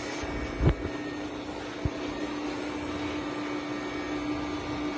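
A steady mechanical hum, with a single knock under a second in and a lighter click near two seconds.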